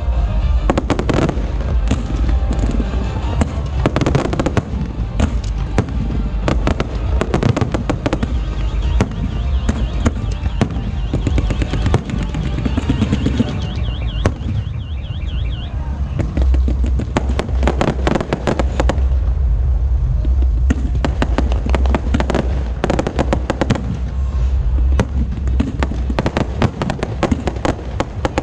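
Aerial fireworks going off in rapid succession: a dense run of sharp bangs and crackles over a continuous low rumble, with a stretch of fast crackling about halfway through.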